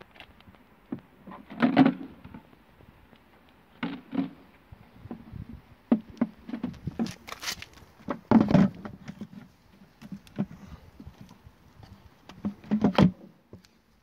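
Plastic clicks, knocks and thumps from handling the clear tank and lid of a washing vacuum cleaner, its motor not running. The loudest thumps come about two seconds in, at around eight and a half seconds, and near the end.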